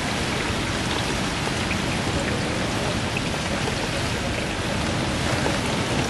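Steady hiss of hurricane rain and gusting wind, with a few faint scattered ticks.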